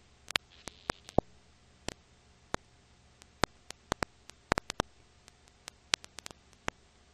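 Irregular clicks and pops over a faint steady hiss and low hum: the surface noise of an old silent-film transfer with no soundtrack of its own.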